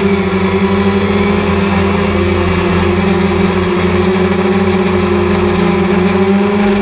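Quadcopter drone's motors and propellers whirring, a loud steady hum with constant pitch.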